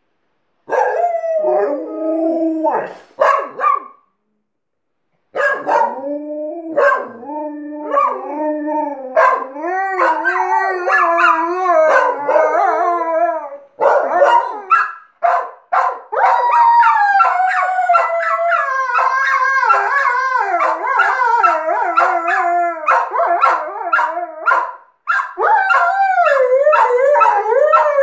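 An Alaskan Malamute and a smaller dog howling together, their long howls overlapping and wavering up and down in pitch. The howling starts about a second in, breaks off briefly around four seconds, then runs on without a pause.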